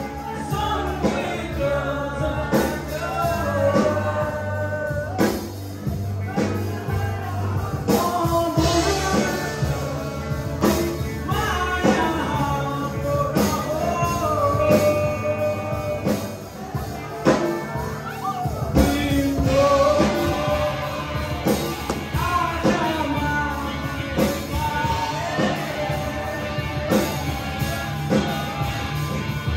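Live rock band playing a song: a man sings over electric guitars and a Tama drum kit keeping a steady beat.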